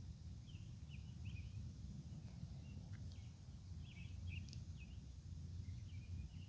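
Steady low outdoor rumble with faint, short bird chirps scattered through it.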